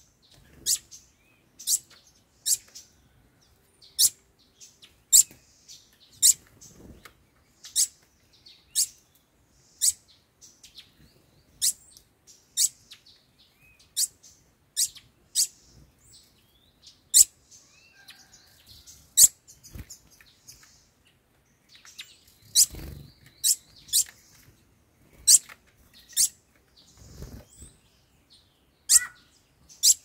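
Songbirds giving short, sharp, high-pitched chip calls, roughly one a second, with a few soft low thumps mixed in.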